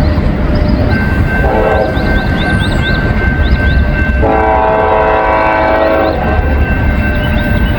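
A freight train approaching with a heavy low rumble, its locomotive air horn sounding a short blast and then a longer one.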